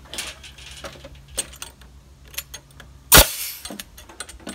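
Nail gun firing once about three seconds in, a single sharp bang with a short tail, driving a nail into an angled wooden reinforcement block in the deck framing. Lighter clicks and knocks of the wood being handled come before it.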